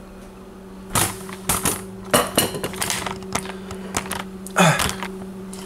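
Irregular light clicks and knocks from a camera and a plate of pancakes with a knife being handled and moved on a kitchen counter, over a steady low hum.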